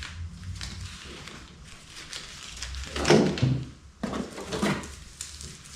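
Small tools and their packaging being handled and set down on a bench: light clicks and rustling, with two louder knocks about three and about four and a half seconds in.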